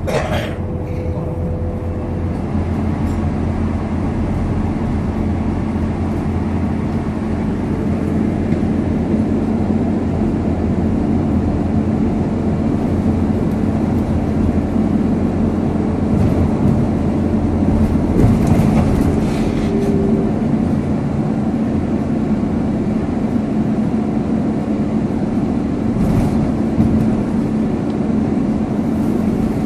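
Scania K230UB bus's five-cylinder diesel engine and ZF gearbox running steadily as the bus drives along, heard from inside the passenger saloon with road noise. A sharp knock right at the start and a thump near the end.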